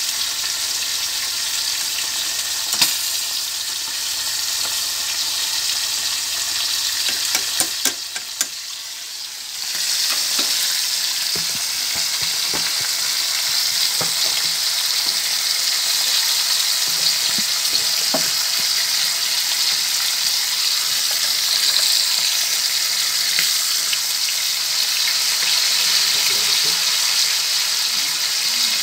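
Two whole pomfret frying in hot oil in a pan, a steady sizzle that grows louder about a third of the way in, with a few light clinks of utensils.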